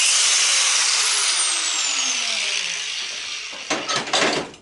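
Angle grinder cutting through a metal clamp with a loud, harsh grinding hiss. About a second in the trigger is released and the disc spins down, its whine falling in pitch as the noise fades. A few sharp knocks follow near the end.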